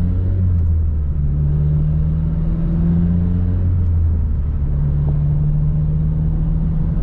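Acura RSX's 2.0 L K20 four-cylinder with an aftermarket Greddy exhaust, heard from inside the cabin with road noise, running at low revs as the car is driven gently while the engine is still warming up. The engine note is steady and eases off briefly about a second in and again around four seconds in.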